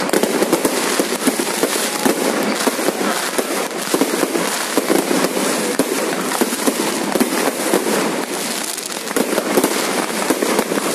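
Aerial fireworks bursting overhead in a rapid, continuous barrage of bangs and crackles, easing briefly about nine seconds in before picking up again.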